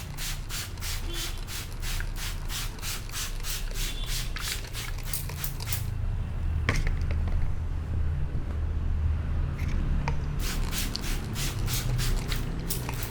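Massage hand strokes on the head in a fast, even rhythm, roughly five a second. They stop for a few seconds midway, then start again. A steady low rumble runs underneath and grows louder during the pause.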